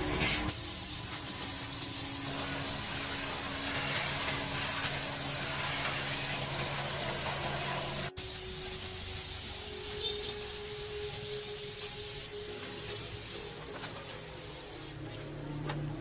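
Steady spraying hiss with a faint hum under it. It breaks off for an instant about eight seconds in, then carries on, getting quieter over the last few seconds.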